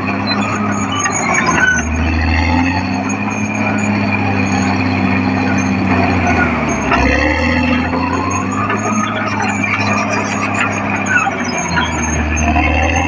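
Caterpillar D6R XL bulldozer's diesel engine working under load, its note sagging and picking up again every few seconds as the load changes.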